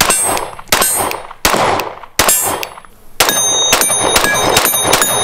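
A handgun firing about a dozen shots: four spaced shots, then, about three seconds in, a faster string of roughly four a second. Steel targets ring with a high, sustained ping after the hits.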